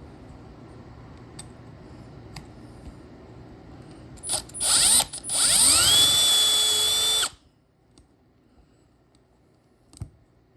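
Handheld electric drill drilling out a lock cylinder's roll pin: a few short bursts, then it spins up with a rising whine, runs steadily for about two seconds and stops abruptly. Faint handling clicks come before it.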